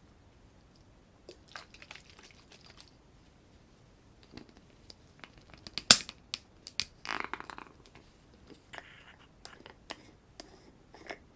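Close-up handling of makeup items: scattered small clicks and taps, with one sharp, loud click about halfway through, and short rustles near the start and just after the loud click.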